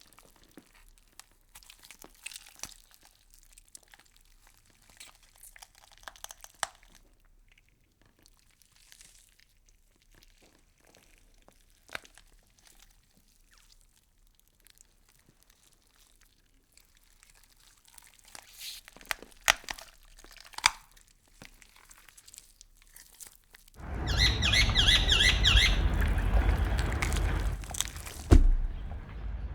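Scattered faint crackles and clicks, like close-up crunching, followed near the end by a loud rushing noise lasting about four seconds that stops suddenly.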